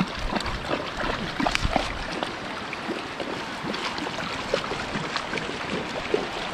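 Flowing river water rushing and lapping at a concrete bank, with small irregular splashes as river weed is rinsed in the water by hand. Low wind rumble on the microphone dies away about two seconds in.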